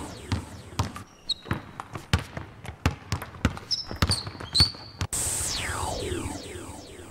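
A basketball dribbling on a sports-hall court, a run of quick irregular bounces, with sneakers squeaking now and then. About five seconds in, a magic sound effect sweeps down in pitch and fades.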